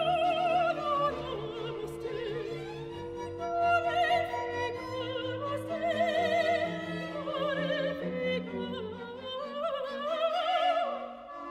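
Classical music: a high voice singing with wide vibrato over sustained orchestral strings.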